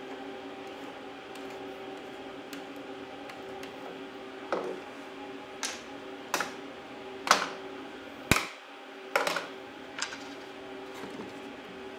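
A series of about seven sharp clicks and knocks spread over five seconds, starting about four seconds in, as one-handed bar clamps and hand tools are handled and set down on a wooden workbench. A steady hum runs underneath throughout.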